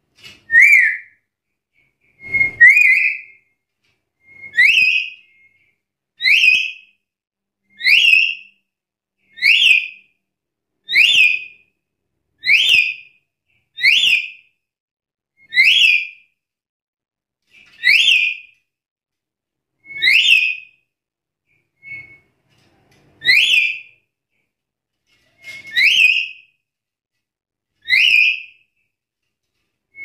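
Black-capped lory (Lorius lory) giving loud whistled calls, each a short, sharp upward sweep, repeated about every two seconds.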